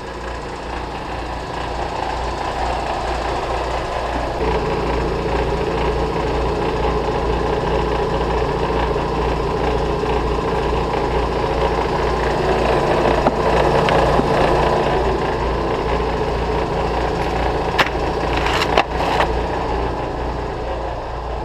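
Air compressor running steadily with an even pulsing; about four seconds in it takes on a steadier tone and grows gradually louder. A few sharp clicks come near the end.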